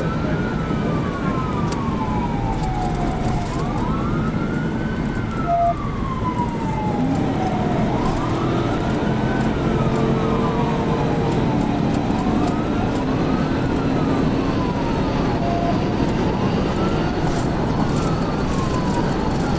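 Police car siren on a slow wail, rising and falling about once every four seconds, over steady road and engine noise.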